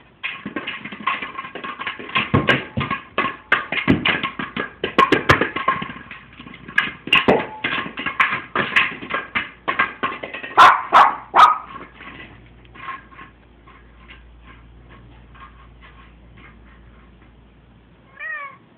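Electronic running egg toy playing its beeping tune while it rolls and knocks about on the floor, with loud clatters for the first dozen seconds. Later the tune goes on more faintly in even pulses.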